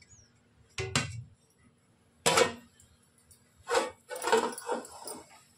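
Metal cookware clanking as the weight and lid are taken off a pot of biryani cooked on dum: a few separate knocks about a second apart, the loudest about two seconds in, then a short rattle.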